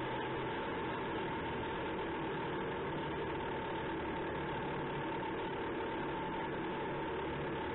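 Challenger Armoured Repair and Recovery Vehicle's Perkins Condor CV12 V12 diesel running steadily under way, with a steady high whine over the engine note.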